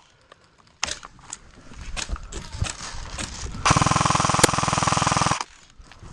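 Airsoft electric gun (AEG), likely an S&T M249, firing one long full-auto burst of about a second and a half, a little past halfway through. Before it come scattered single sharp cracks of other shots.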